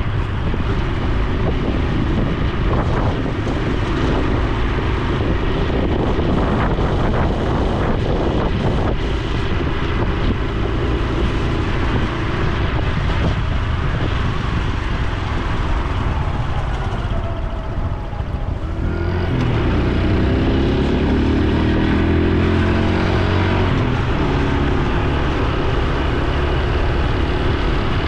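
Honda Super Cub C125's single-cylinder engine and exhaust running as the motorcycle is ridden along the road. About two-thirds of the way through the engine eases off briefly, then pulls away again with a rising note.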